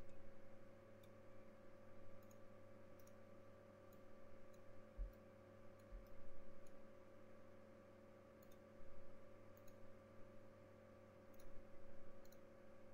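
Steady low electrical hum of the recording setup, with faint, light clicks scattered a few at a time, typical of a computer input device in use during digital sculpting. Two soft low thumps come about five and six seconds in.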